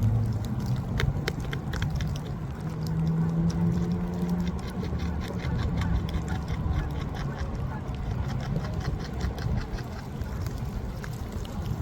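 Beaver gnawing and chewing on a wooden branch: a rapid run of sharp crunching clicks, densest in the middle, over a steady hiss of light rain. A low engine hum sounds at the start and again for a couple of seconds.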